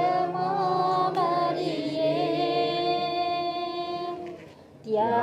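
Unaccompanied Tamil Catholic hymn, sung slowly with a wavering vibrato. One long note is held from about two seconds in; the singing then breaks off briefly and the next line starts near the end.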